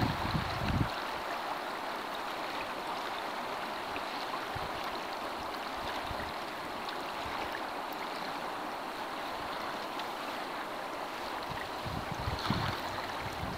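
Steady rush and lap of rippled river water around a moving canoe, with wind buffeting the microphone in the first second and again near the end.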